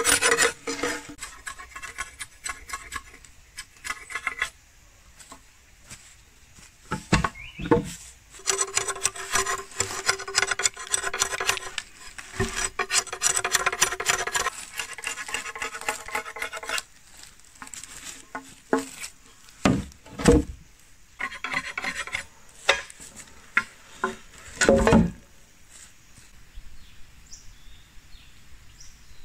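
A curved blade scraping the green skin off a bamboo pole in repeated rasping strokes, in several stretches over the first half. Later come a few single knocks.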